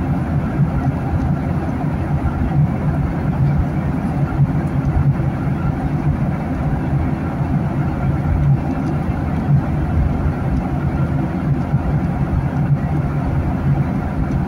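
Steady cabin noise of a Boeing 737-900 at cruise, heard from a window seat by the wing: the low hum of the CFM56-7B turbofan engines mixed with the rush of air over the fuselage.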